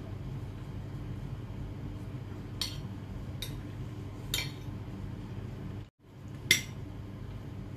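A spoon and fork clink against a plate as someone eats: four separate clinks, the last one near the end the loudest, over a steady low background hum.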